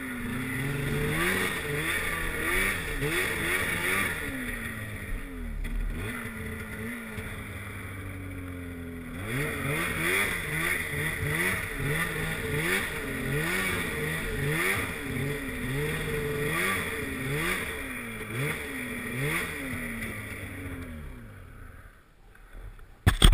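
Polaris snowmobile engine revving up and down again and again as it is throttled through deep powder, settling to a lower, steadier run for a few seconds midway. The engine fades away near the end, followed by a sudden loud noise in the last instant.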